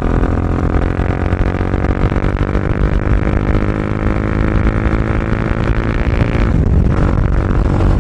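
Bajaj Dominar 400's single-cylinder engine running loudly through an aftermarket Akrapovic full-system exhaust fitted with a dB killer, giving a steady, deep exhaust note.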